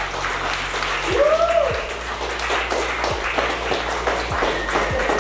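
A small group of people clapping their hands in a ragged, continuous applause, with background music playing under it.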